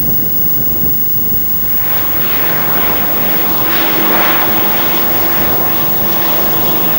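Single-engine high-wing light aircraft's engine and propeller, growing louder about two seconds in as it rolls past along the ground, with a steady engine tone holding from about three seconds in.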